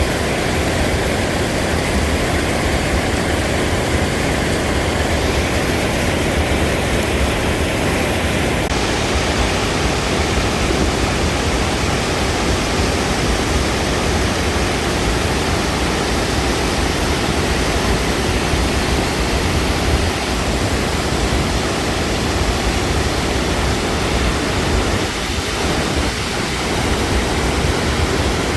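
Loud, steady rush of water pouring down a waterfall.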